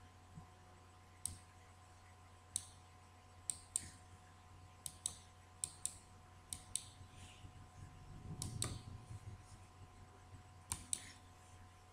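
Computer mouse clicks: a dozen or so sharp clicks at irregular intervals, many in quick pairs, with a fuller, louder clatter about eight and a half seconds in.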